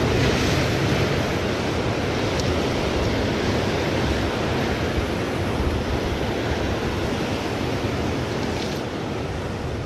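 Surf washing steadily over a rocky cobble shore, a continuous rush of breaking waves.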